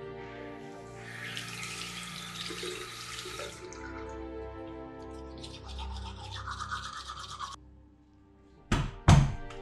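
Teeth being brushed with a manual toothbrush: a hissing rush, then a stretch of brisk scrubbing strokes, over soft background music. The sound then cuts off, and two loud thumps follow close together near the end.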